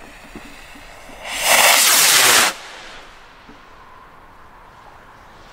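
Firework bomb rocket lifting off with a loud whoosh that lasts about a second, starting about a second and a half in, then fading as it climbs.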